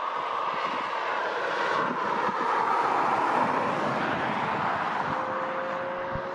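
Airbus A330-200 airliner's jet engines running as it rolls along the runway after landing. A steady rush of jet noise swells over the first few seconds, then slowly eases, and a faint steady whine comes in near the end.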